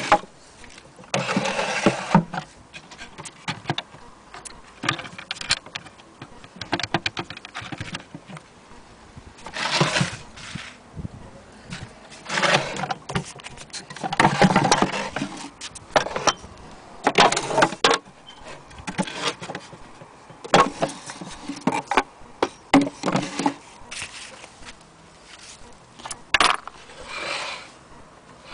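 Handling noise from an antique sewing machine's wooden case: irregular knocks, scrapes and rattles in short bursts and sharp clicks as the case and its drawer are opened and moved about.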